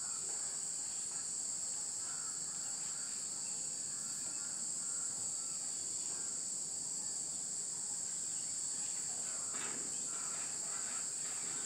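Faint scratching of chalk on a blackboard as words are written, over a steady high-pitched hiss.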